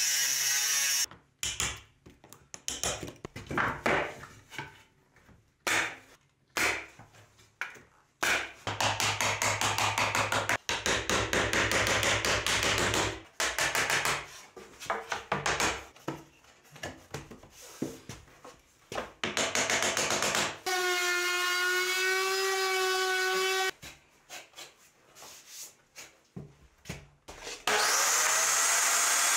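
A run of carpentry tool sounds. A cordless circular saw is running at the start. Intermittent knocks and taps and a stretch of steady power-tool noise follow, then a motor whine lasting about three seconds past the middle, and near the end a table saw starts up and runs.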